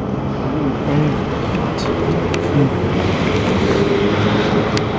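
South Western Railway Class 444 Desiro electric multiple unit moving off along the platform at close range: a steady rush of wheel and motor noise with a faint electric hum and a few sharp clicks from the wheels on the rails.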